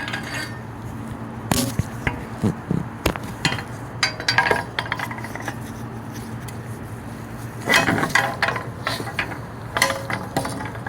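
Metal clinks and knocks of strut parts being handled as a coil spring, top mount and hardware are fitted onto a new Bilstein front strut, coming in scattered clusters over a steady low hum.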